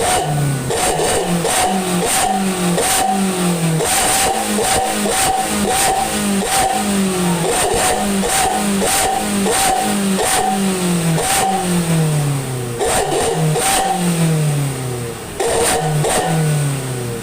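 Daihatsu Gran Max van's engine and exhaust revved in quick, repeated throttle blips, about two to three a second, each rise in revs falling away at once, with sharp cracks scattered among the blips.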